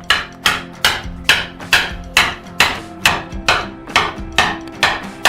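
Background music with a steady, even beat of plucked or struck hits, about two a second, over held notes.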